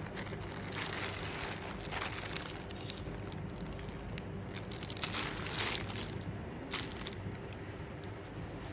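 Plastic packaging crinkling and rustling in several short, irregular bursts as a plastic courier mailer and the clear plastic wrap around a folded garment are handled and opened.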